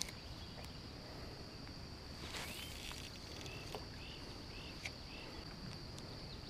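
Faint steady high-pitched insect drone, with a few short chirps and some light clicks.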